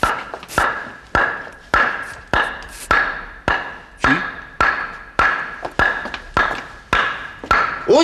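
Sledgehammer blows struck at a steady pace, about one every 0.6 s, each with a short metallic ring.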